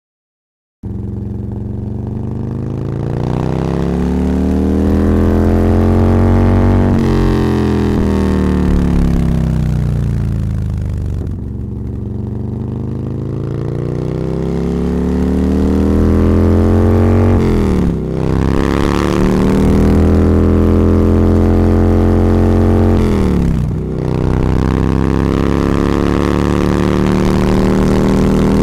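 Motorcycle engine heard from the rider's seat while riding, its note climbing and falling as the bike speeds up and slows. Twice in the second half the note drops sharply and picks up again, as at gear changes, then runs steadily.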